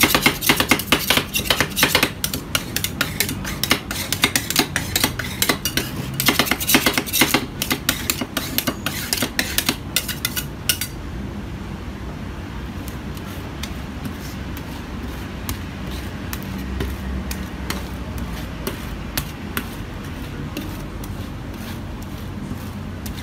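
Two metal spatulas rapidly chopping and tapping chocolate ice-cream mix on a steel ice pan, a fast run of metallic clattering that stops abruptly about halfway through. After that, a steady low hum with occasional soft scrapes as the mix is spread thin.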